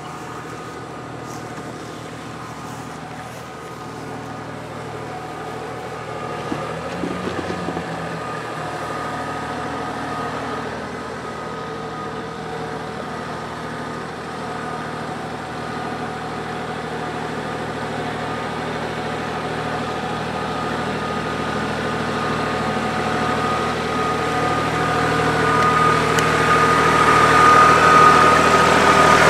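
Kubota L3901 compact tractor's three-cylinder diesel engine running as the tractor drives closer, with a steady tone that grows steadily louder.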